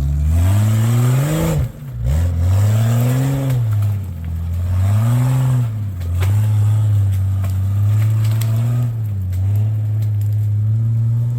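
Off-road vehicle's engine revving as it tries to bump up and crawl over an obstacle: the revs rise and fall three times in the first six seconds, then hold steady, with tyre and ground noise over it.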